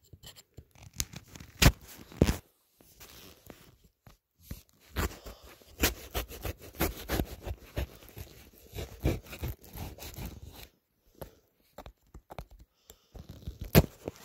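A knife cutting open a boxer-brief retail box: scraping, clicking and tearing of the packaging, with a few loud sharp snaps.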